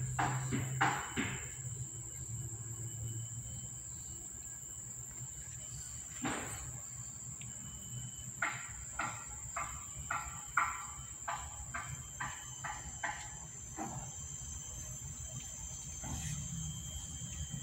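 Steady high-pitched insect drone. Over it, a run of short soft clicks, about two a second, comes in the middle: the wet smacks of a mother cat licking her kitten.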